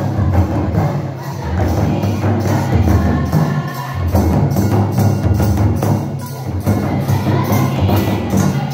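Tribal folk dance music driven by hand drums, beating a steady rhythm with bright strokes about three a second.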